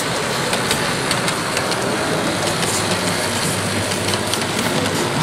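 Steady low engine drone of a model diesel locomotive, played through its DCC sound decoder as it hauls coaches, under the constant hubbub of a crowded exhibition hall.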